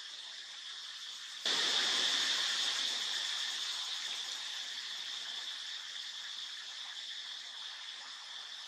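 Steady, high-pitched insect chorus that jumps louder about a second and a half in and holds steady after.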